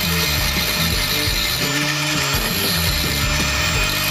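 Electric angle grinder with an abrasive disc grinding down a weld bead on a steel motorcycle frame: a steady high whine and hiss. Background music with a repeating bass line runs underneath.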